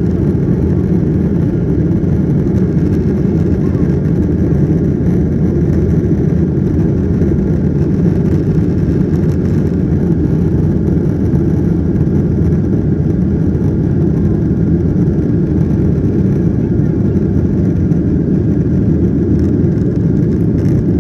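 Steady low rumble inside the cabin of a Boeing 737-900ER, from its CFM56-7B jet engines and the airflow around the fuselage.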